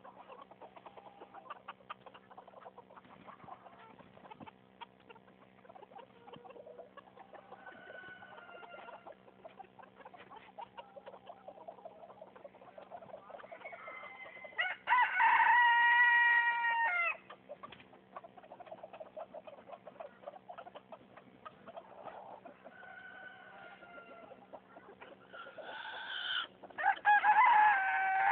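Chickens clucking softly, with two loud, drawn-out calls, one about halfway through and one near the end.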